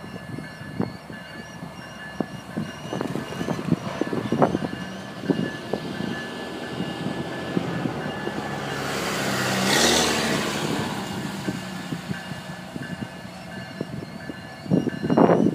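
Distant Florida East Coast Railway diesel locomotives pulling a freight train away from a stop, running under power as they work up to speed. Scattered short knocks run throughout, a swell of noise rises and falls about ten seconds in, and there is a louder burst near the end.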